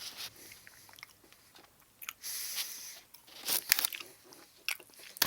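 Close-up mouth sounds of someone biting and chewing a frozen ice lolly, with a few short, crisp bites in the second half.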